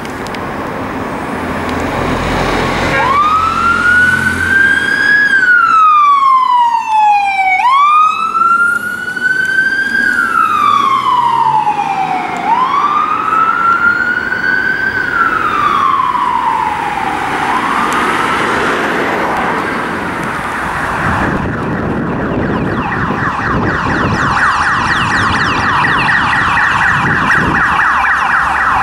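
UK emergency vehicle siren on the wail, four slow sweeps each rising and then falling over about four and a half seconds. About two-thirds of the way through it gives way to a rapid yelp that keeps going.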